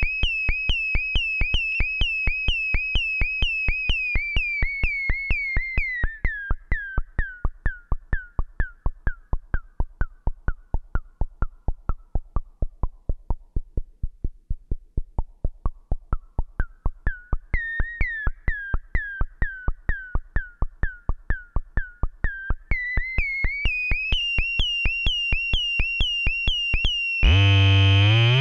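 Breadboarded Moog-style transistor ladder filter set to high resonance and fed a steady click train, a few clicks a second; each click rings as a short, high, pitched ping. The ping's pitch sweeps down and nearly dies away halfway through as the filter cutoff is turned down, then climbs back up. About a second before the end the clicks stop and a buzzy, harmonic-rich synth tone takes over.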